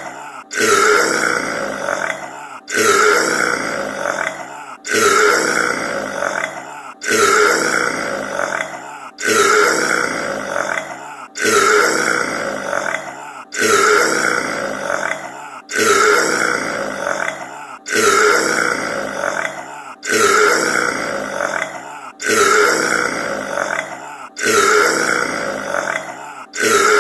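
A loud, long human burp played on a loop, the same burp repeating about every two seconds, about twelve times. Each one starts abruptly and trails off.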